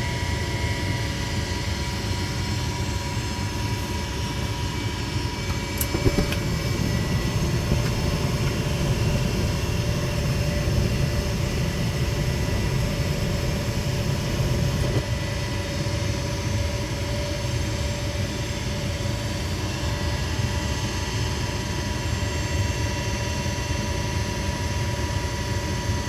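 Gas furnace's draft inducer motor running with a steady hum. About six seconds in a sharp click, and the burners light and burn with a low rumble for about nine seconds before dropping out, while the inducer keeps running: the flame goes out after only about eight seconds even with the flame sensor cleaned.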